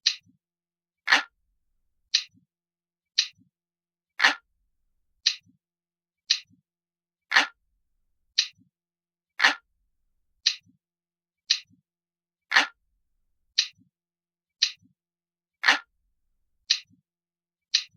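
Ticking clock sound, one sharp tick about every second at a steady pace, some ticks a little fuller than others.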